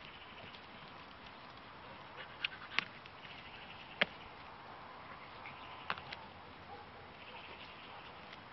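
Alpine goats butting heads: about five sharp knocks between two and a half and six seconds in, the loudest about four seconds in. A faint high chirring runs underneath.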